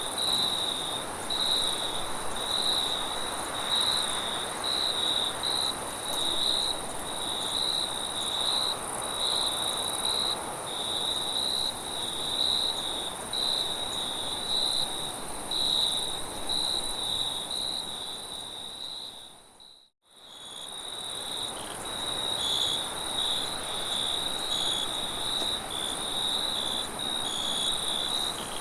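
Crickets chirping in quick, uneven pulses, with a steady higher insect trill over a soft wind hiss. About 20 s in, the whole ambience dips out briefly and fades back in.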